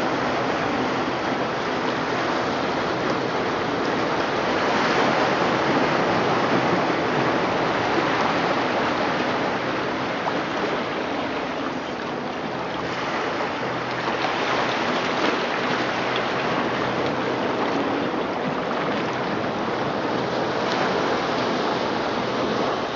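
Recording of ocean surf played through loudspeakers: a steady rushing wash of waves that swells and ebbs slowly over several seconds.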